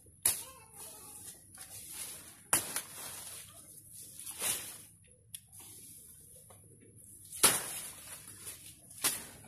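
Dry, dead banana leaves being pulled and torn off a banana plant by hand: a series of rustling tears, about five sharper ones spread through, with lighter rustling between.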